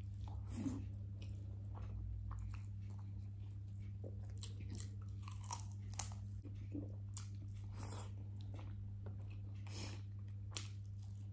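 A person chewing and biting food close to the microphone, with irregular crunchy bites and mouth clicks. The meal is rice with fried chicken and broccoli. A steady low hum runs underneath.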